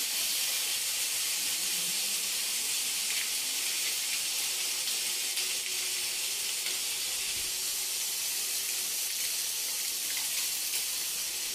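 Broccoli florets frying in oil in a kadai over a gas flame, giving an unbroken sizzling hiss.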